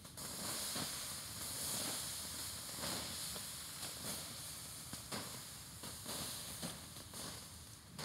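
Water poured from a pot onto hot campfire embers, hissing and sizzling as it turns to steam, with scattered small pops; the hiss eases off toward the end.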